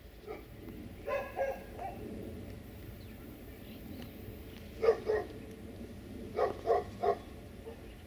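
A dog barking in three short groups of two or three barks each, over a low steady background rumble.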